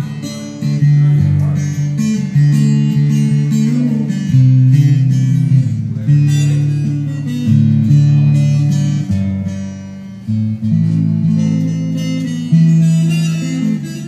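Amplified guitar played with the feet, strumming sustained chords over a moving low bass line. This is an instrumental stretch of the song, without singing.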